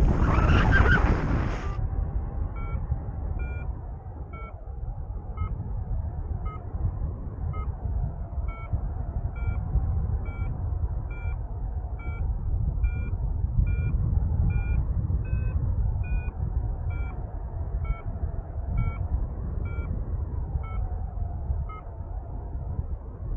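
Paragliding variometer beeping about once a second: short tones whose pitch rises a little in the middle and falls again, the beeping that signals the glider is climbing. Under it runs a steady rumble of wind on the microphone, with a loud gust of wind noise in the first two seconds.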